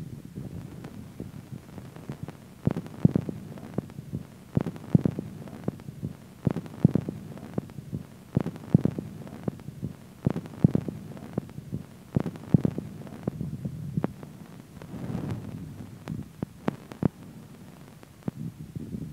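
Experimental electronic music: a low, steady hum under pairs of soft thumps that repeat about every two seconds.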